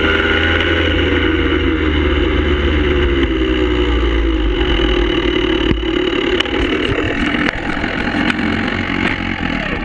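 Motorcycle engine running at speed under a heavy rush of wind over the camera, its note slowly falling as the bike eases off, with a few sharp knocks of wind buffeting or handling in the second half.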